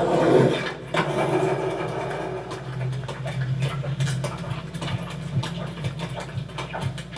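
Engine sounds from a city street scene in a film's sound-effects track: a vehicle swells past at the start, then an engine hums steadily, with scattered light clicks and knocks over it.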